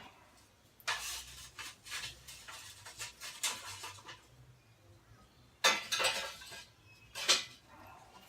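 A small metal shovel scooping and scraping hot rocks, with rattling and clinking for a few seconds, then two louder clatters in the second half.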